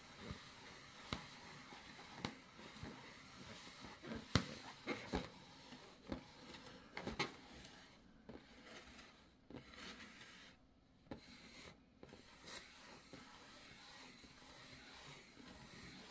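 A pet's claws scratching and tapping at an inflated rubber balloon: soft scrapes with scattered sharp taps, most of them in the first half.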